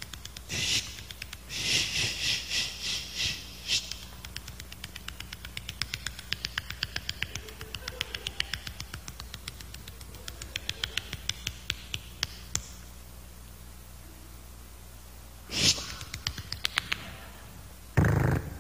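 Rotary telephone being dialled: several runs of rapid clicks, each a second or two long, as the dial winds and spins back, with short pauses between digits. A louder puff comes near the end.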